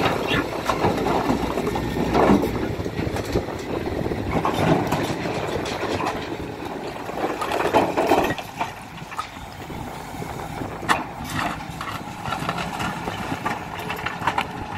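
Hidromek 310LC excavator running with its diesel engine, mixed with irregular clunks and scrapes of stony material, dropping somewhat quieter about eight and a half seconds in.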